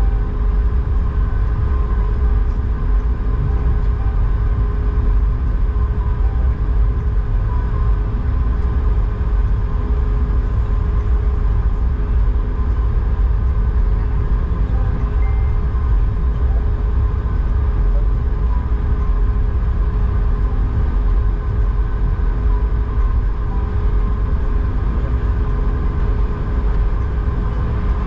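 Cabin noise of an Airbus A220 taxiing on its Pratt & Whitney PW1500G geared turbofans at taxi idle: a steady, loud low rumble with a few constant tones held over it.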